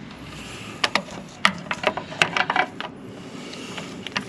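Metal hand tools clinking: a 3/8 deep-well socket and ratchet being handled and fitted onto a starter mounting bolt, an irregular run of light clicks and taps from about a second in to about three seconds in.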